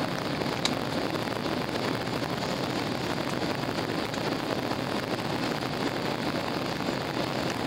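Steady rushing noise of an airliner's jet engines and airflow, heard inside the passenger cabin during the climb after take-off.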